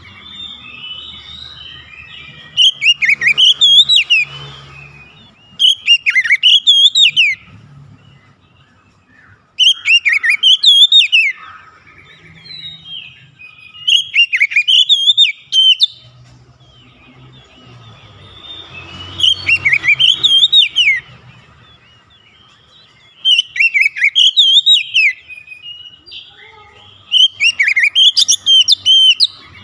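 Oriental magpie-robin singing in loud phrases of rapid whistled notes and slurred glides, about seven phrases with softer twittering between them.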